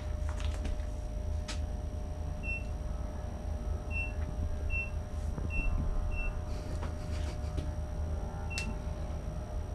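Keypad beeps from a self-serve fuel terminal as a code is keyed in: six short beeps of the same high pitch at uneven intervals, with faint key clicks, over a steady low rumble.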